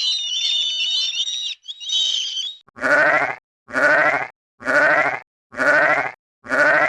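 High-pitched chicken calls stop about a second and a half in, followed by one brief burst. Then come five bleats, each under a second long and rising in pitch, evenly spaced about one a second.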